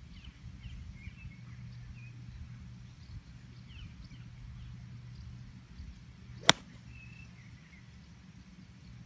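A single sharp click of a 9-iron striking a golf ball, about six and a half seconds in.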